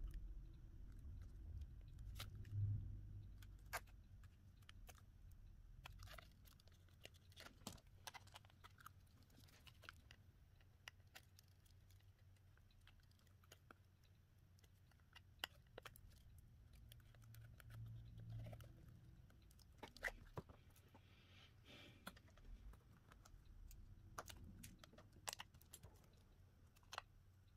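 Faint, scattered clicks and taps of small tools and parts being handled on a smartphone under repair, with a low rumble at the start and again about two-thirds of the way through.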